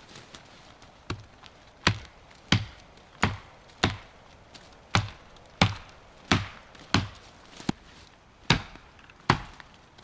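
Axe chopping into wood with about a dozen sharp, evenly paced strikes, roughly one every 0.7 s.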